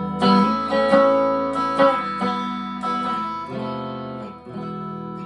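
Harley Benton ST-25th Strat-style electric guitar played clean through a Marshall MG15 15-watt amp, pickup selector in position 4. Chords and single notes are picked about eight times, each left to ring.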